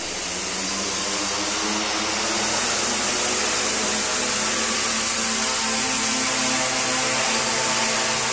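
Quadcopter's brushless motors and propellers running, a steady buzzing drone whose pitch wavers slightly as the craft lifts off the floor and hovers. The motors are driven by a student-built electronic speed controller under test.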